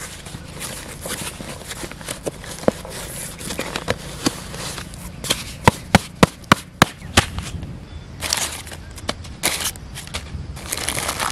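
Cardboard box being cut and opened: a blade working along the packing tape, a string of sharp cracks and snaps from the cardboard about halfway through, then rustling of crumpled paper packing near the end.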